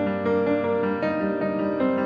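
Background music led by piano or electric piano, a steady flow of notes.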